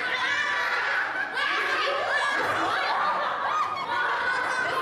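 A group of children laughing together, many voices overlapping.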